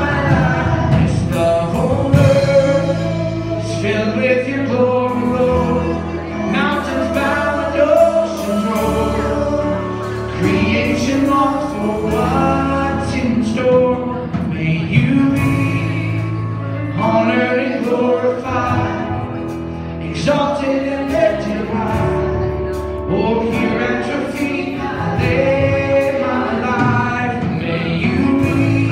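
Live church worship band playing and singing a gospel song: voices over keyboard, acoustic guitar and drums, with a steady beat.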